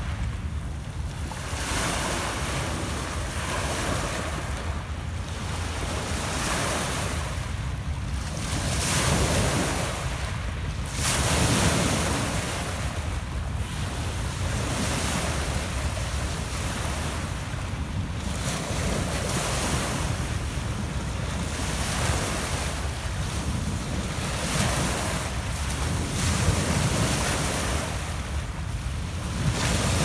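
Small lake waves breaking and washing up over a pebble beach, a fresh wash every two to three seconds, with a steady low rumble of wind on the microphone.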